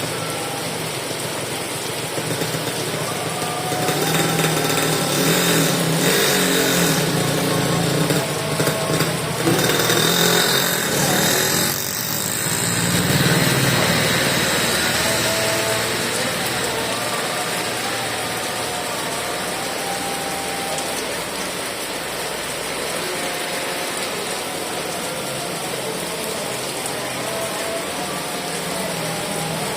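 Heavy rain falling steadily. Between about four and thirteen seconds in, a louder passing sound rises over it and then fades.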